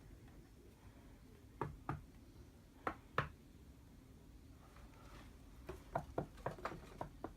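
Quiet room with scattered short knocks and taps: two pairs about two and three seconds in, then a quicker run of about eight near the end.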